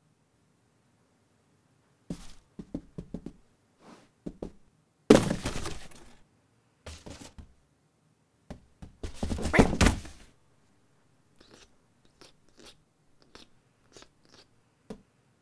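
Cardboard box knocking, scraping and rustling as a cat squirms and climbs about in it. A run of small knocks starts about two seconds in, two louder scraping thuds come about five and nine seconds in, then scattered light taps follow.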